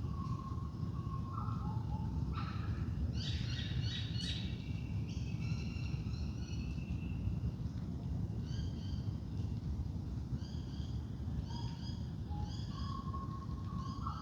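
Several wild birds calling in a dawn chorus: short whistles and quick runs of repeated chirps, a busier flurry a few seconds in, over a steady low rumble.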